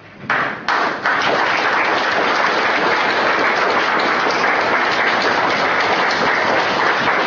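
Audience applauding: a few scattered claps, then steady applause from about a second in.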